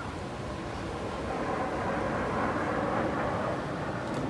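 Turbofan jet noise from Red Arrows BAE Hawk T1 jets flying past in formation: a broad rush that builds over the first two seconds and eases slightly near the end.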